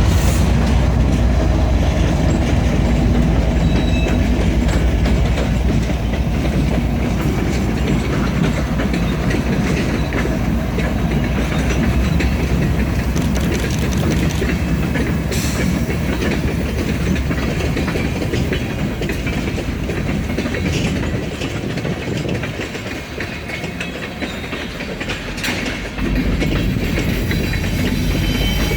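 Train rolling by: a steady low rumble with wheels clacking over the rail joints. It dips quieter for a few seconds and then comes back up near the end.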